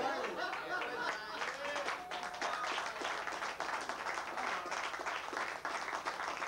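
Party guests talking, then a crowd clapping from about two seconds in.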